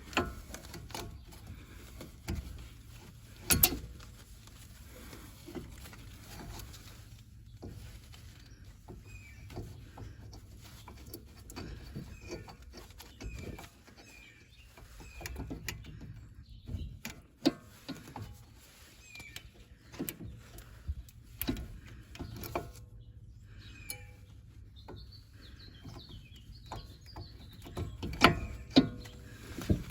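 Scattered metallic clicks and knocks as a brake caliper and its bolts are handled and lined up on the hub, with a few louder knocks near the end. Small birds chirp faintly in the background, in a run of short calls in the middle.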